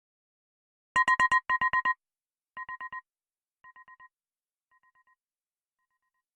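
Apple iPhone ringtone played back slowed to 0.70 speed: an electronic beep in rapid groups of four pulses. Two loud groups come about a second in, then four more groups about a second apart, each fainter, dying away like an echo.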